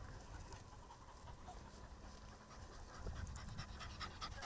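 Hunting dog panting fast in quick short breaths, growing louder from about three seconds in, over a low rumble.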